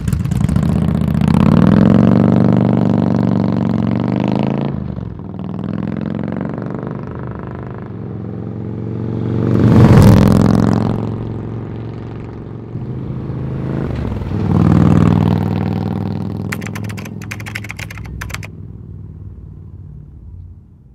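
Harley-Davidson touring motorcycle's V-twin running through Vance & Hines Twin Slash round slip-on mufflers: it revs up as it pulls away, with a gear change about four and a half seconds in, goes past loudest about ten seconds in, revs again around fifteen seconds and then fades away.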